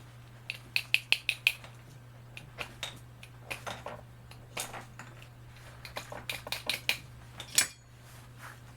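Quick metallic clicks and light clinks of small tools at a soldering bench, in clusters: a fast run of about six near the start, scattered taps through the middle, another run about six seconds in, and one sharper click near the end. A steady low hum runs underneath.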